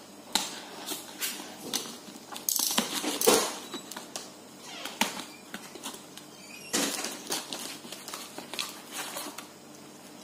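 Box cutter blade slitting packing tape along a small cardboard box, with irregular scratchy scraping strokes and cardboard rustling and knocks.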